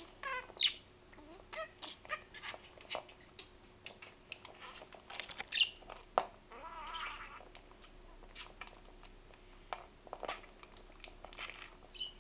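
Budgerigar chirping and chattering in short bursts, with a longer warble about seven seconds in, and scattered light clicks and taps between the calls.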